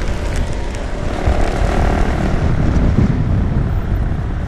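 Wind roaring over a riding motorcyclist's microphone, mixed with a 125cc motorcycle engine running at speed; the engine's tone shows faintly through the wind in the middle.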